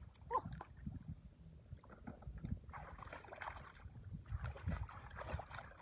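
Faint sloshing and splashing of shallow water as hands work through it for catfish, with soft irregular knocks and clicks.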